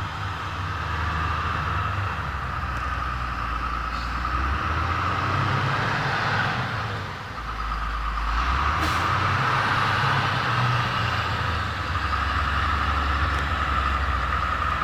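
A large engine running steadily, its low note stepping up and down several times, as from heavy machinery working.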